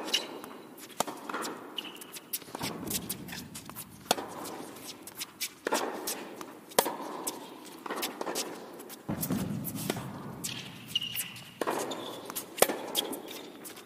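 Tennis rally on an indoor hard court: racquets striking the ball, the ball bouncing, and players' shuffling footsteps. The sharp hits come every second or so.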